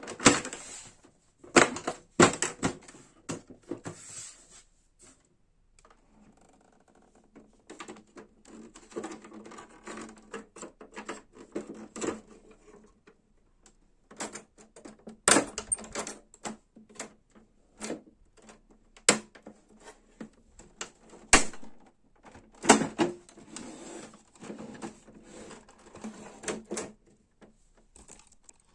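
Irregular clicking and clattering of plastic printer parts being handled and fitted, with a few sharper knocks and short pauses in between.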